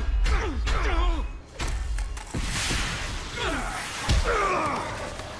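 Animated fight: men's grunts and cries of effort mixed with punches, slams and body thuds, and a whoosh about halfway through.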